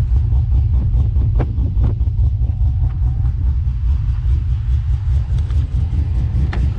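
Freshly cammed Holden VX Commodore engine idling through its twin exhaust tips: a loud, steady, deep rumble.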